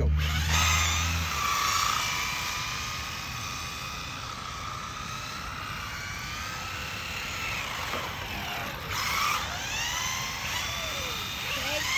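Two Rlaarlo RC cars, an AK-787 and an AK-917, racing with their electric motors whining. Several overlapping whines rise and fall in pitch as the cars speed up and slow down, with quick sweeps near the end.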